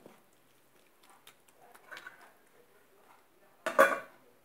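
A stainless steel lid is set down on a frying pan of simmering tomatoes with a brief metallic clatter near the end, after a few faint knocks and scrapes from the wooden spatula in the pan. The pan is being covered so the sauce can simmer.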